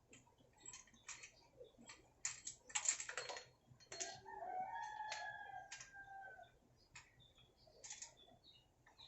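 A rooster crows once in the background, one long call from about four seconds in to about six and a half. Before it comes a run of small clicks and taps, thickest around two to three seconds in.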